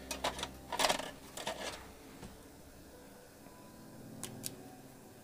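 Sharp clicks and short scrapes of small hard tools and parts being handled on a repair bench: a quick cluster in the first two seconds and two more clicks a little past four seconds, over a low steady hum.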